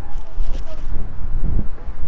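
Wind buffeting the microphone, a loud, low rumble.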